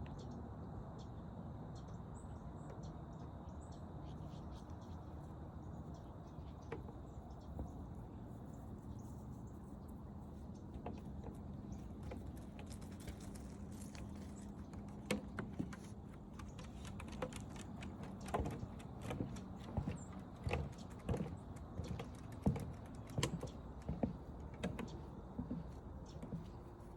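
Footsteps on a forest trail over a steady low outdoor background. The steps start scattered and pick up to a regular walking pace of a step every half second or so over the second half.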